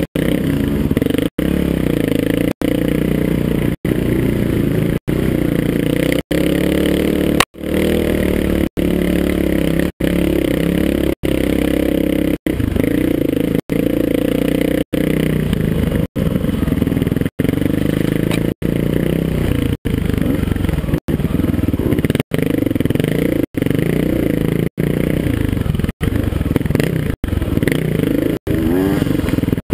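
Dirt bike engine running under load and revving up and down as it is ridden, picked up by a helmet-mounted camera. The sound is cut by a brief dropout a little less than once a second.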